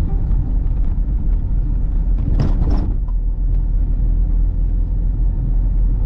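Car on the road: a steady low rumble of engine and tyres, with a brief whoosh a little over two seconds in.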